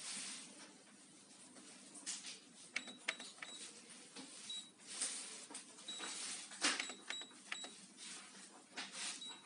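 Canon imageRUNNER copier control panel giving short, high key-press beeps, about ten of them in small clusters, as values are keyed in and OK is pressed. Several brief swells of soft hiss come in between them.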